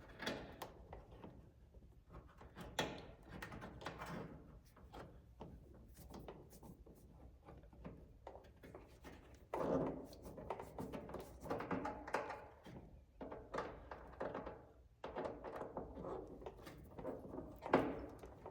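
Work noises from test-fitting a car's fender rock guard: scattered taps, knocks and short rattles of the part and hardware being handled against the fender. A sharp knock comes near the end.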